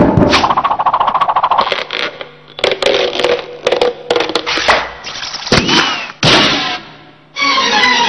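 Cartoon slapstick sound effects: a fast run of clatters, knocks and scrapes, with a short rising whistle near the middle. Orchestral string music starts near the end.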